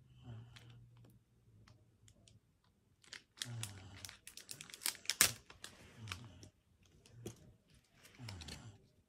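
A Pokémon booster pack's foil wrapper being crinkled and torn open, with sharp clicks and rustles. The handling is loudest just after five seconds in, with another rustle near the end.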